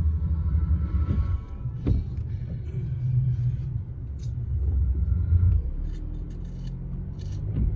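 Low road rumble of a car driving, heard from inside the cabin, with a few faint clicks.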